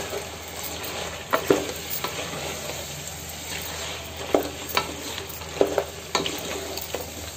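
Chicken pieces frying in oil with a steady sizzle as a wooden spatula stirs and turns them in the pot, scraping and knocking against the pot now and then.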